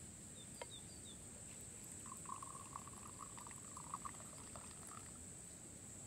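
Tea poured from a small teapot into a glass, a trickle lasting about three seconds, rising slightly in pitch as the glass fills.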